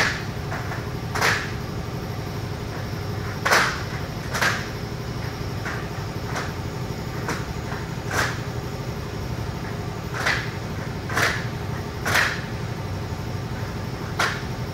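Sharp clicks and snaps as clips are fitted one after another along the edge of a fabric panel, about a dozen at uneven spacing, roughly one a second, over a steady low hum.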